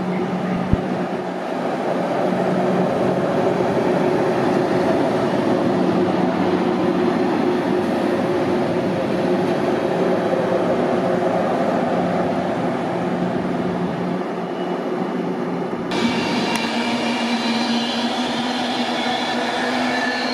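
A train running through the station, a continuous rumble with steady tones. A sharp click comes just under a second in, and about 16 s in a new set of higher tones joins.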